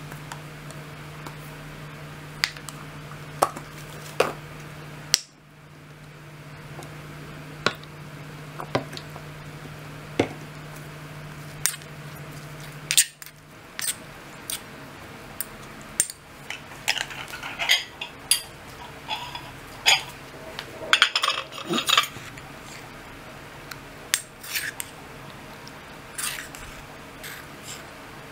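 A spoon stirring chili paste in a stone mortar, clinking and scraping against the stone in sharp irregular knocks that come thicker past the middle. A steady low hum runs under the first half and stops about halfway through.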